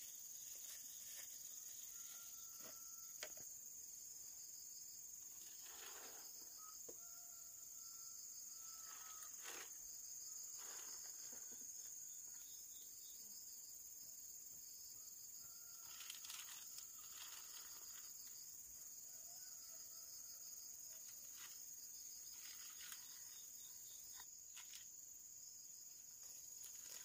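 Steady high-pitched chirring of insects, with scattered soft rustles and snaps as clusters of mac khen (prickly ash) fruit are handled and pushed into a bamboo basket. A few faint whistled bird calls come now and then.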